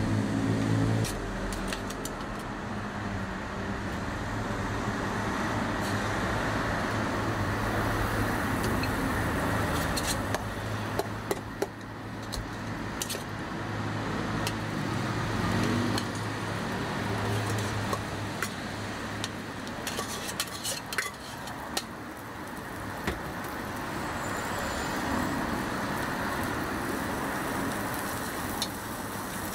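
Melted fat and egg-and-cabbage batter sizzling on a flat-top griddle, with scattered metal clicks of tongs and a steel pitcher, over a steady hum of street traffic.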